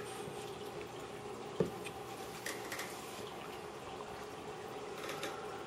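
Water running and trickling in a turtle aquarium over a steady hum, with one sharp click about a second and a half in.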